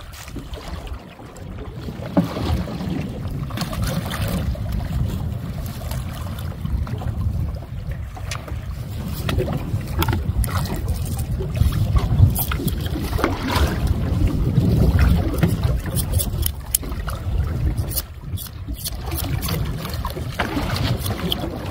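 Wind rumbling on the microphone over water sloshing and splashing against the side of a small open boat, with scattered splashes as a large stingray is held at the surface on a hook.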